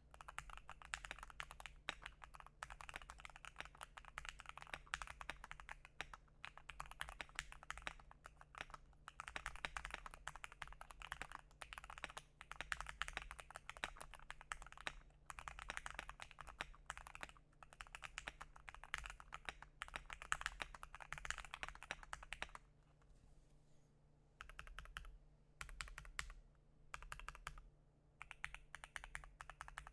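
Continuous fast typing on a Keychron Q2 custom keyboard with tape-modded case, lubed and filmed Gateron Box Ink Pink V2 linear switches and MT3 dye-sub PBT keycaps, giving a soft, creamy keystroke sound. About three-quarters of the way through, the typing breaks into short separate bursts with pauses between them.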